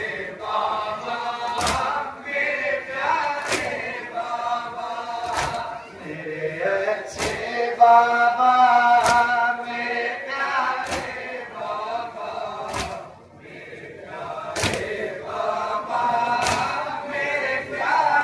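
Men's voices chanting a noha mourning lament together, with the mourners' open-hand chest-beats (matam) landing in unison about once every two seconds.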